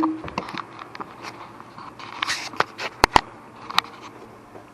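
Handling noises of an LED turn-signal light being held and placed against an ATV's plastic body panels: scattered light clicks and taps, with two sharp knocks close together about three seconds in and another shortly after.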